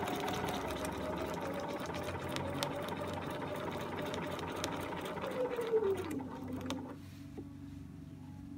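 Domestic sewing machine stitching at a steady fast speed while free-motion ruler quilting, its needle ticking rapidly over the motor whine. About six seconds in the whine falls in pitch as the machine slows down, and near the end it is much quieter.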